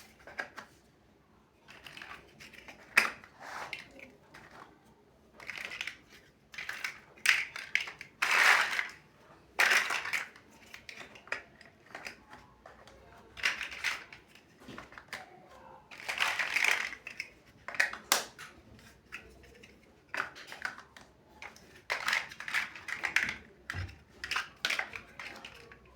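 Plastic building bricks being handled and pressed together: irregular clicks, taps and short rattles of plastic pieces.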